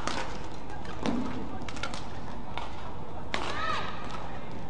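Badminton rally: rackets hitting the shuttlecock with sharp smacks, along with the thuds of players' footwork on the court mat. A brief squeak comes right after a hard hit about three and a half seconds in.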